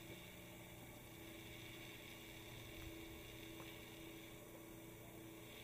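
Near silence with a faint, steady hum.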